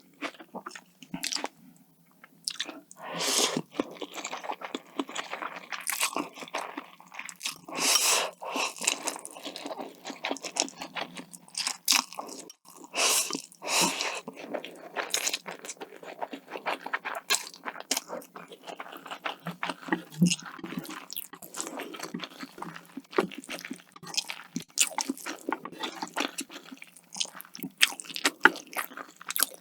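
Close-miked eating: repeated crisp crunching bites and chewing. Several louder crunches stand out, about 3, 8, 13 and 15 seconds in.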